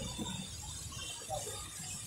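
Faint street traffic on a rain-wet road: a steady low rumble of passing cars and motorbikes with an even hiss of tyres and drizzle.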